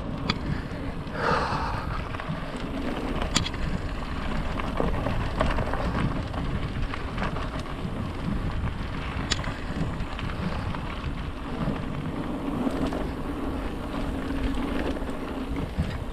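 Mountain bike rolling along a dirt forest track: a steady rumble of tyres on dirt and wind buffeting the bike-mounted camera's microphone, with the bike rattling and two sharp clicks, a few seconds in and again about halfway.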